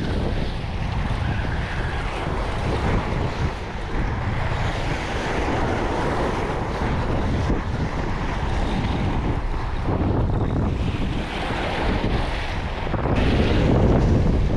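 Wind buffeting the microphone over small waves washing and breaking against a rocky shoreline, a steady rushing noise with a heavy low rumble.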